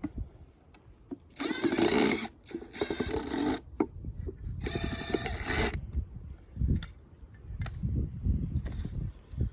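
Power drill running in three short bursts of about a second each, followed by duller low knocks and handling sounds.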